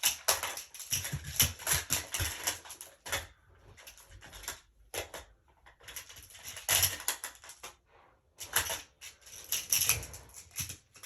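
Plastic magnetic building tiles clacking and clattering as they are handled and snapped together, in several quick runs of clicks.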